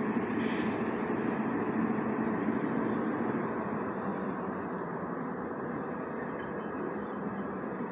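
Steady distant vehicle rumble, a little louder in the first few seconds and then easing off slightly.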